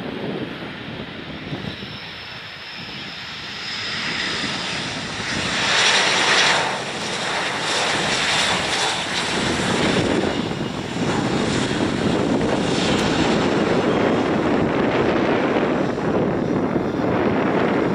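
Airbus A321-211's CFM56 jet engines: a steady rush that swells to a peak about six seconds in as the airliner passes close, then stays loud and even.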